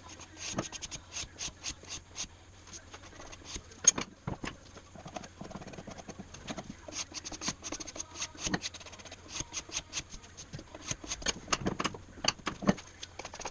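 Sped-up scraping and wiping on a wooden moulding plane with a steel card scraper and a rag: a fast, irregular run of short scrapes and clicks, over a faint steady hum.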